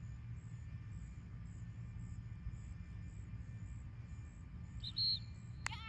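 Steady low wind rumble on the microphone in an open field. About five seconds in comes a short high-pitched chirp, and near the end a run of quick chirps that fall in pitch begins.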